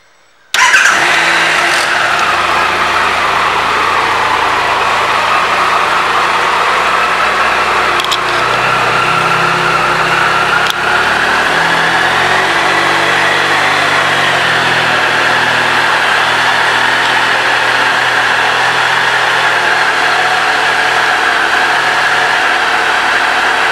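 2017 Triumph Trophy SE's three-cylinder engine starting about half a second in, with a brief flare of revs, then settling into a steady idle.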